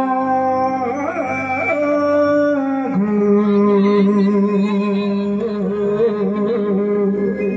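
A man singing a Sambalpuri devotional bhajan into a microphone through a stage sound system, with instrumental backing. He holds long drawn-out notes that step in pitch, and about three seconds in he settles on one long note that wavers near the end.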